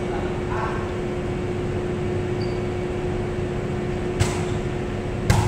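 Steady hum of gym ventilation fans with a constant tone through it. Near the end, two sharp smacks of a volleyball about a second apart, the second louder.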